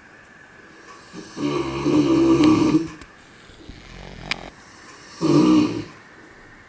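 Large Caucasian shepherd dog snoring in her sleep: a long, loud snore about a second and a half in, then a shorter one a few seconds later, with a brief click between them.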